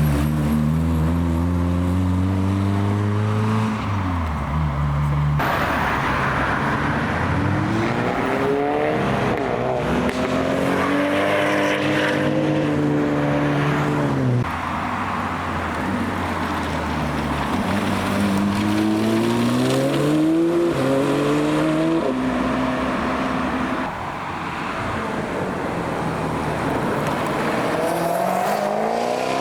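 Performance cars pulling away one after another, engines revving up in rising sweeps with a sudden drop in pitch at each gear change.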